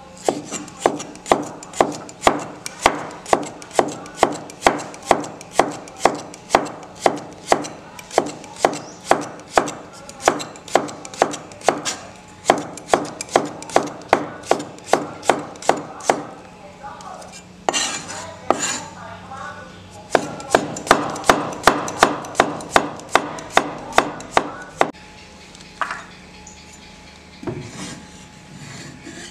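Steel cleaver slicing cucumber on a wooden chopping board: quick, even knocks of the blade on the wood, about three a second, with a short break in the middle. The chopping stops a few seconds before the end.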